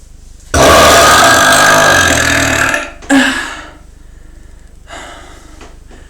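A person's deep, loud belch from air gulped down into the chest, lasting about two seconds and tailing off at the end, followed by a short second burst about half a second later.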